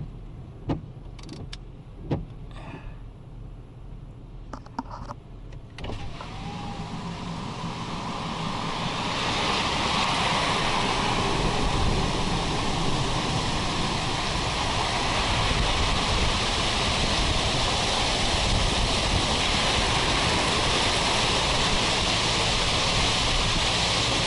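Heavy rain heard from inside a stopped vehicle. A few scattered knocks come first, then about six seconds in a steady rushing downpour swells up over a few seconds and stays loud.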